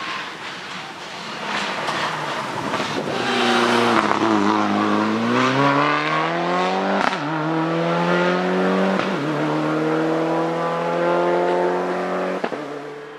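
A Mitsubishi Lancer Evolution VIII race car's turbocharged four-cylinder engine on a hillclimb run. At first it comes off the throttle with the pitch dropping and a few sharp cracks as it slows for a hairpin. Then it accelerates hard out of the bend, the revs climbing through two quick upshifts about two seconds apart.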